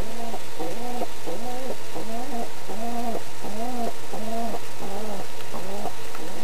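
White fantail pigeon cooing: a steady run of coos, each rising and falling in pitch, a little faster than one a second.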